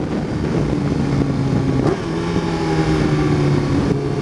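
Kawasaki ZX14's inline-four engine running steadily under way, with wind rushing over the helmet. The engine note breaks briefly about two seconds in, then carries on.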